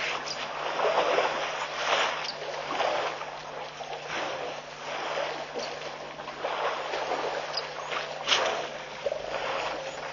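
Outdoor waterhole ambience: a rushing noise that swells and fades every second or two, over a steady low hum, with a sharp click about eight seconds in.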